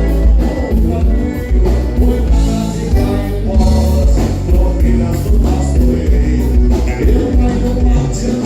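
Live gaúcho milonga played by a band, with electric bass, guitar and drums under a sung vocal line.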